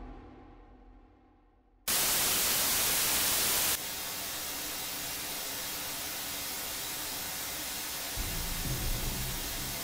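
Television static: a hiss that cuts in suddenly about two seconds in, loud for about two seconds, then drops to a steady, quieter hiss. A low rumble joins it near the end.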